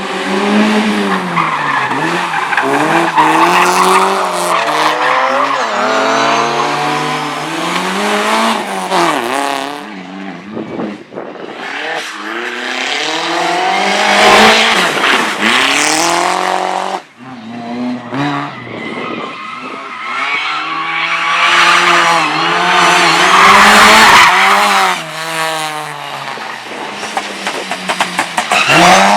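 Slalom race car engine revving hard, its pitch climbing and dropping again and again through gear changes and lifts, with tyres squealing through the turns. About two-thirds of the way through the sound drops off briefly, then a car's engine builds again.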